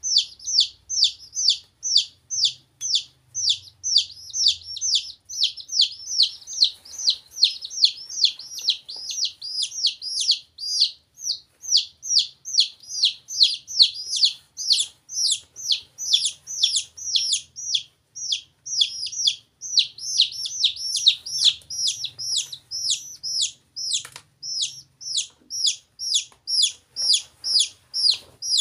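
Newly hatched chicks and duckling peeping: a fast, unbroken run of high, falling peeps, about three a second.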